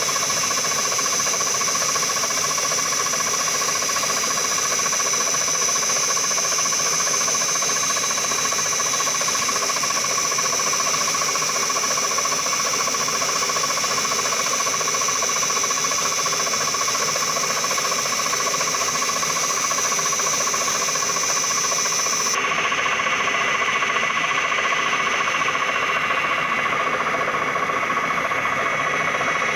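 CNC milling machine running and cutting: a steady mechanical whine with high tones over a noisy hiss. About two-thirds of the way in it changes abruptly, the highest whine cutting out and a lower, rougher cutting noise taking over.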